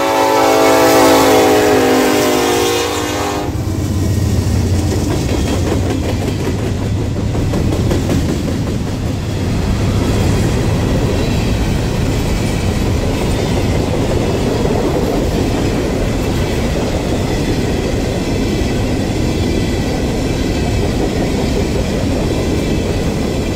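Norfolk Southern SD70ACe diesel locomotive sounding its multi-note horn for about three seconds as it passes, followed by the steady rumble and wheel clatter of the empty coal cars rolling by.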